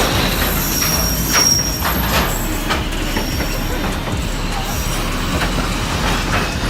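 Train running past close by: a steady loud rail rumble with scattered clanks and brief high-pitched wheel squeals, about a second in and again near the end.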